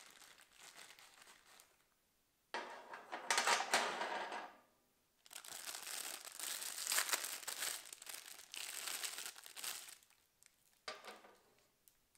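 Thin clear plastic bags crinkling as hands handle and unwrap them. The crinkling comes in bouts: a loud one about two and a half seconds in, a longer one from about five seconds in to ten, and a brief one near the end.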